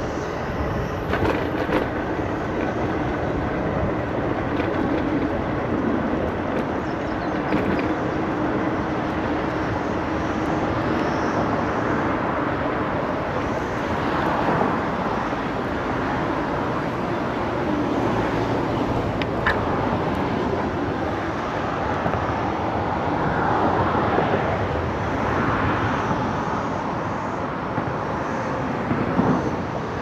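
Steady rolling rumble of a Segway Ninebot Max G2 electric kick scooter riding along the trail, its tyres on the path mixed with wind on the microphone.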